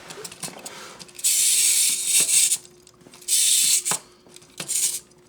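Small clockwork wind-up motor in a ZOIDS Gun Sniper model kit, its gears whirring and ratcheting in three short bursts, about a second and a half, then under a second, then a brief one. The motor keeps stopping, which the owners take to mean the little crank motor isn't that strong, perhaps from age.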